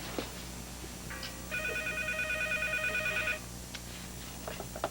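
Cordless telephone ringing with an electronic trilling ring. One burst lasts about two seconds and starts about a second and a half in.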